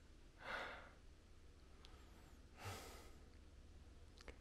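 A person breathing hard after a steep uphill climb: two heavy, airy breaths about two seconds apart.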